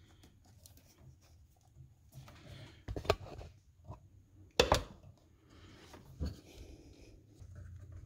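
Faint rustling of wires and plastic-sleeved wiring harness being handled, with three short knocks, the loudest a little past halfway.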